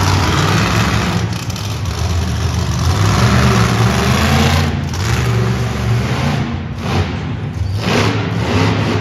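Monster truck engine running loud and revving up and down as the truck drives across the arena floor.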